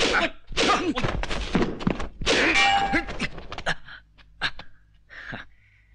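Wooden fighting staffs clacking and striking in quick succession for about three seconds, then a few single knocks spaced apart.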